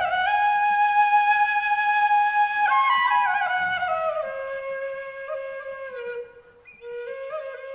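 Background music: a solo flute playing a slow melody. It holds one long note, then steps down through shorter, ornamented notes, and breaks off briefly near the end before going on.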